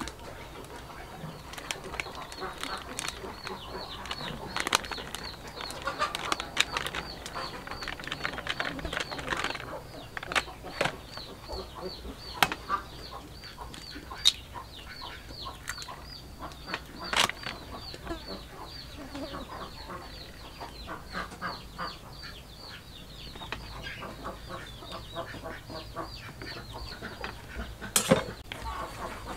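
Chickens clucking and birds chirping in rapid short calls, with scattered sharp clicks and knocks and one louder knock near the end.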